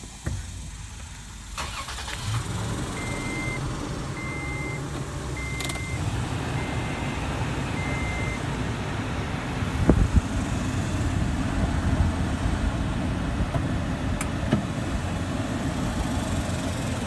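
A 2014 Toyota Tacoma's engine is started through a push-button start conversion: it catches about two seconds in and settles into a steady idle. Five short, evenly spaced beeps sound while it idles, and a couple of sharp clicks come later.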